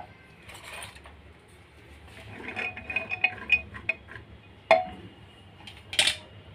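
Wooden spatula stirring soaked chickpeas in an aluminium pressure cooker: the chickpeas rattle and the spatula clinks and scrapes against the pot. A sharp knock on the pot comes near five seconds in, and a short scrape follows about a second later.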